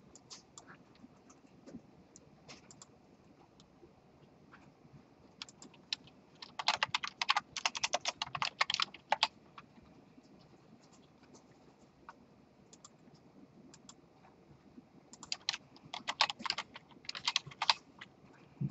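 Typing on a computer keyboard in two quick runs, one about six seconds in and another about fifteen seconds in, with a few single clicks before and between them.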